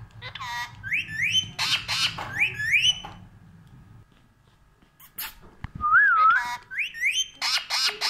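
Pet parakeet giving short rising whistles, mostly in pairs, mixed with harsh squawks, and one wavering whistle about six seconds in.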